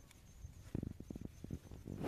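Wild bitter lettuce being sorted and trimmed with a knife: a quick run of soft, low knocks about a second in, then a sharper click at the end.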